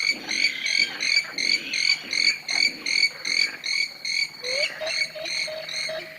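An animal calling in a fast, very regular series of croaking calls, about three a second. A steady held tone slides in about four and a half seconds in.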